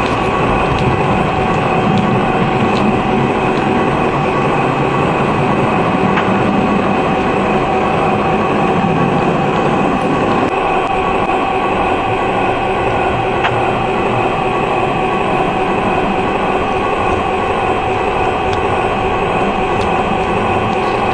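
O27-gauge model train running on three-rail track: a steady motor hum over rolling wheel noise, with a few faint clicks. The low rumble drops about halfway through.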